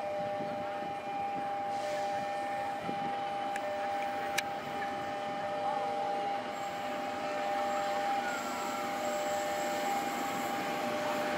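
Railway level-crossing warning alarm sounding a steady two-note tone, while a diesel-hauled passenger train approaches and its rumble grows louder toward the end.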